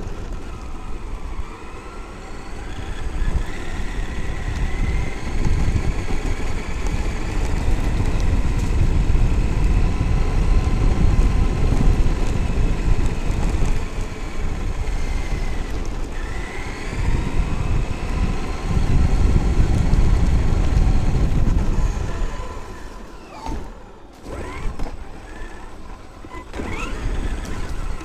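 Traxxas X-Maxx RC monster truck's electric brushless motor whining, its pitch rising and falling with speed, over heavy rumble from wind and tyres on the onboard camera's microphone. Near the end the rumble drops away and the whine sweeps sharply up and down several times.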